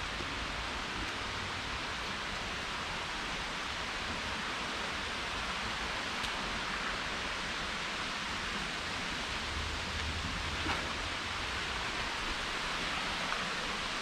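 Sherman Falls, a curtain waterfall on Ancaster Creek, making a steady rushing hiss of falling water.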